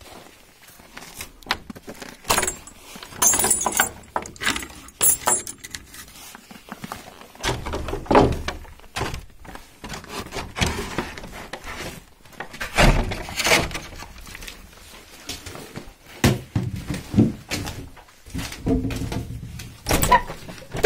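A metal chain rattling and clinking against a wooden log-hut door, with irregular wooden knocks and clunks as the door and its latch are worked and someone moves about on wooden boards.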